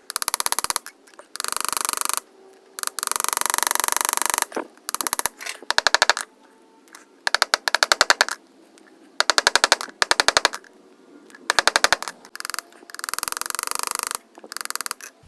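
Hammer tapping on a steel pivot rivet, peening it over to set a folding knife's pivot: rapid runs of sharp metallic taps, about ten a second, in bursts of up to two seconds with short pauses between.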